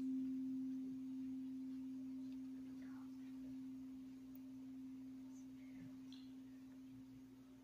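A bell struck once, ringing a single low, steady tone that fades slowly, tolled in remembrance after a name is read.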